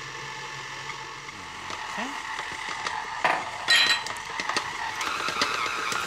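Electric stand mixer running, its flat paddle beating flour and water into dough in a steel bowl: a steady motor whine, with two metallic clinks a little past halfway.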